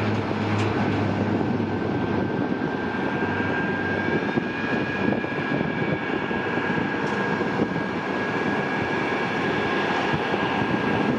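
1989 Beech 1900C twin turboprop, with Pratt & Whitney PT6A engines, climbing out at takeoff power: a steady roar with a thin, high steady whine over it. The low propeller hum fades in the first second as the aircraft pulls away.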